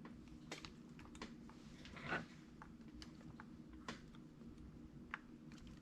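Faint scattered clicks and light knocks of hand tools and small metal parts being handled, about one every second, over a low steady room hum.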